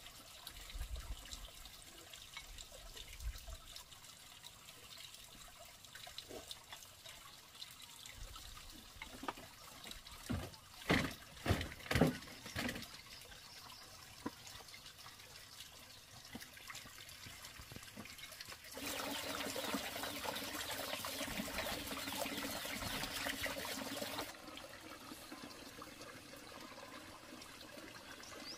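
Water trickling, with a run of sharp knocks about ten seconds in and a louder rushing noise for about five seconds near the end that starts and stops abruptly.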